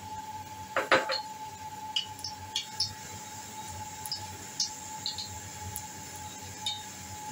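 A dish clinks down once about a second in, followed by scattered light ticks, over a faint steady tone.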